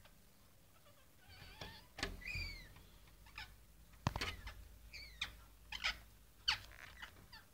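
Pet parrots making a series of short squawking calls that arch and fall in pitch, mixed with a few sharp taps or knocks.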